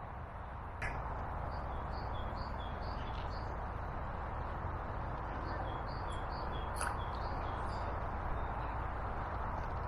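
Steady rush of water pouring through a weir pool, with a bird repeating short high chirps over it.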